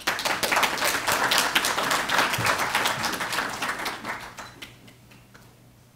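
Audience applauding, dense at first and then thinning out and dying away a few seconds in.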